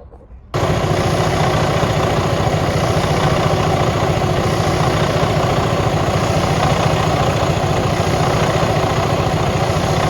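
Freightliner Cascadia's heavy-duty diesel engine idling steadily. It cuts in abruptly about half a second in, with no cranking heard.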